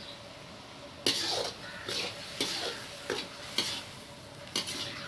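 Metal spatula stirring and scraping masala in a metal karahi, with the sizzle of frying. The strokes start about a second in, each with a sharp clack of spatula on pan. The spices are being fried down just after a cup of yogurt went in.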